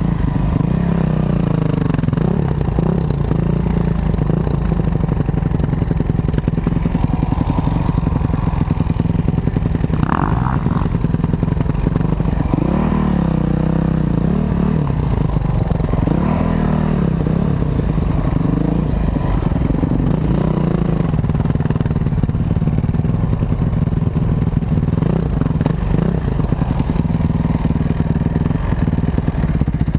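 Off-road enduro motorcycle engine running hard, its pitch rising and falling again and again as the throttle is opened and closed over rough ground.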